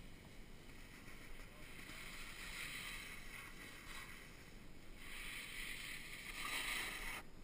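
Snowboard sliding over groomed snow: a hissing scrape that swells twice and cuts off suddenly just before the end.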